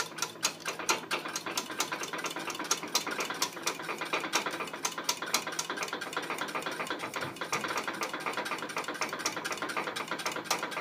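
Thick chocolate custard being stirred in a stainless steel saucepan, the utensil clicking and scraping against the pan in a quick, irregular run of small taps.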